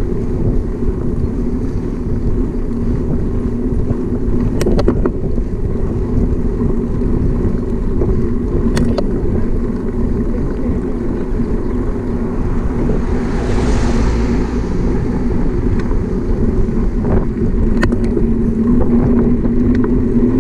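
Steady rumble of wind and tyre noise on the microphone of a camera riding on a bicycle moving up a paved road, with a few sharp clicks and a brief swell of hiss about two thirds of the way through.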